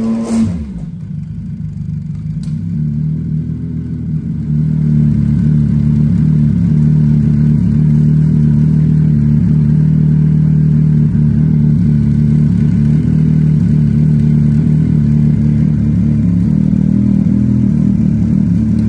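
Yamaha snowmobile engine idling steadily, sitting loaded in a pickup bed. A sharp knock comes just at the start, and the idle grows louder about four seconds in.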